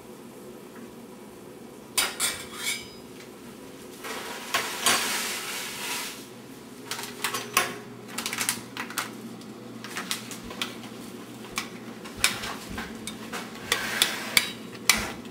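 Pots, dishes and utensils clinking and knocking while food is stirred in a pot, starting about two seconds in with a string of sharp clatters, over a low steady hum.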